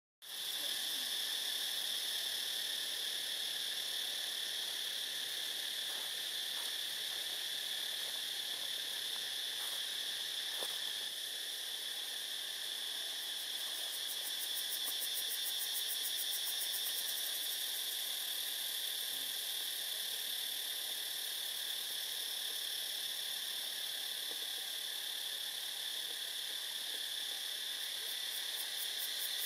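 Steady high-pitched drone of an insect chorus in the trees, with a fast pulsing buzz higher up joining in about halfway through and again near the end.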